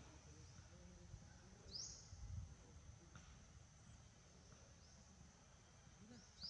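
Near silence with faint outdoor ambience: a steady high-pitched insect drone, and two short rising chirps, one about two seconds in and one near the end, over a low rumble.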